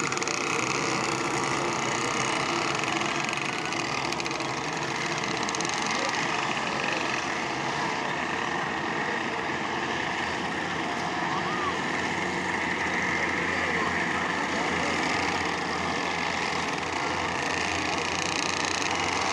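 Several go-kart engines running together as a pack of karts laps the track, a steady mixed engine drone.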